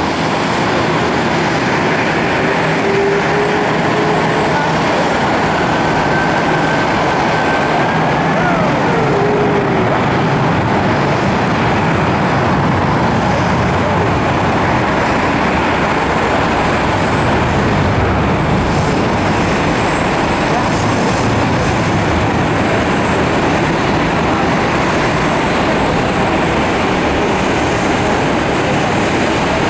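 Steady, loud roar of a Boeing 747-400's four jet engines as the airliner moves along the runway for takeoff. A faint thin whistling tone glides up and then sweeps down about eight to nine seconds in.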